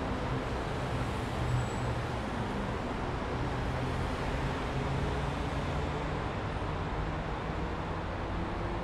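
Steady road-traffic noise: an even, continuous rumble with a low hum underneath.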